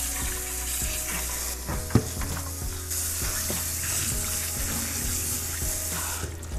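Cold tap water running steadily onto parboiled lamb chunks in a stainless-steel colander in a metal sink, rinsing them. There is a sharp knock about two seconds in as the colander is handled.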